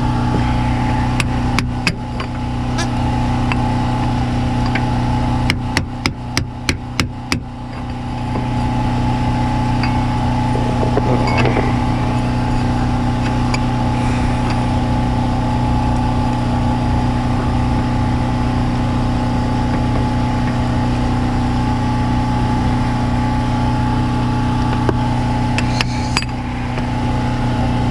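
A quick run of about seven hammer blows, roughly four a second, about six seconds in, with a few single knocks before and near the end, as metal is struck to free an axle seized in its hub. A steady mechanical hum runs underneath.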